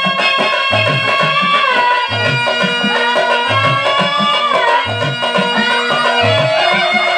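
A woman singing a Telugu stage-drama verse in a sliding, ornamented melody, accompanied by harmonium and a tabla keeping a steady beat.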